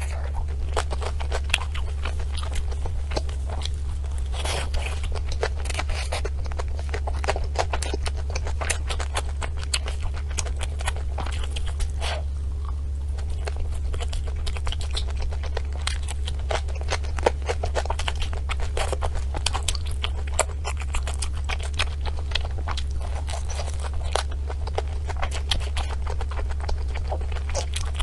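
Close-miked chewing of desserts: a continuous run of small crunches, clicks and wet mouth sounds, over a steady low hum.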